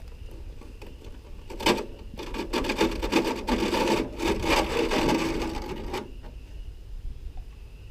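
Gritty scraping and rattling of gravel and sand being worked during a high banker cleanout: one sharp knock, then about four seconds of dense rasping and clicking that stops abruptly.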